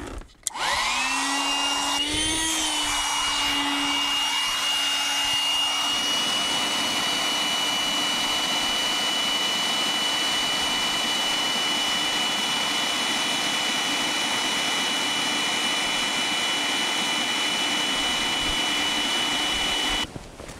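A motor starting up, its whine rising in pitch over the first second or two and then holding steady, running evenly until it stops abruptly near the end.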